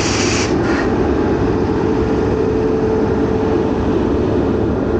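WAP-7 electric locomotive standing with its cooling blowers running: a loud, steady hum with a steady whine in it. A high hiss dies away about half a second in.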